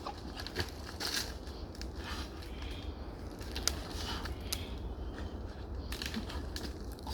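Dry coconut leaves and bush debris crackling and crunching irregularly underfoot, with a few sharper snaps.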